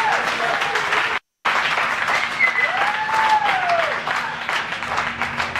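A room of people applauding and cheering, with dense hand-clapping throughout and one voice giving a long rising-and-falling whoop in the middle. The sound drops out completely for a moment about a second in.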